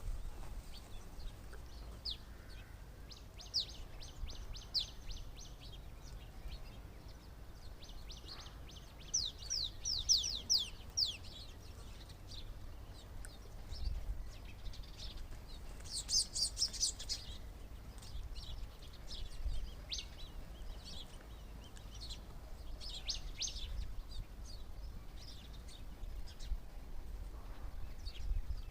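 Several birds chirping, with short high chirps and quick runs of rapid notes coming in bursts, the busiest burst a little past halfway. A low rumble runs underneath.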